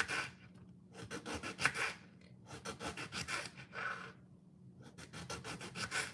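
Knife slicing through an eggplant onto a wooden cutting board, in several runs of quick strokes with short pauses between.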